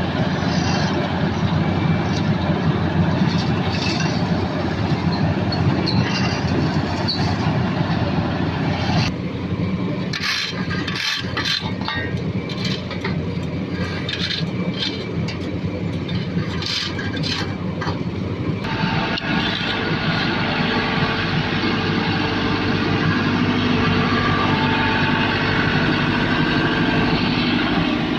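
Heavy road-paving machinery engines running steadily. The sound changes abruptly twice, about a third and two-thirds of the way through.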